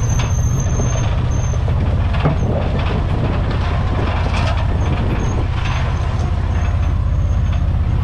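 Gator utility vehicle's engine running steadily under way, with the body and load rattling and knocking.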